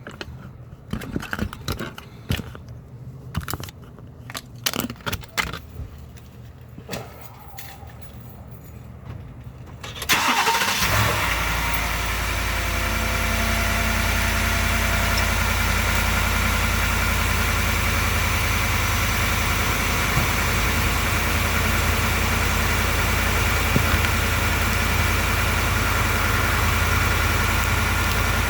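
Scattered small clicks and knocks for about ten seconds, then a 2018 Ford F-150's 5.0-litre V8 cold-starts and settles into a steady idle.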